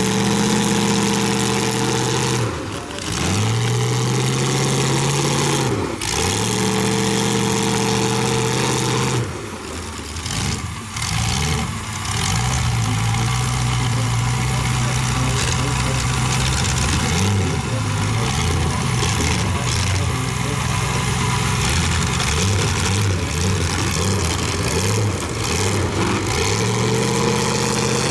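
Demolition derby cars' engines revving hard. The pitch climbs and drops off sharply several times as the throttle is floored and released, with a few brief dips in between.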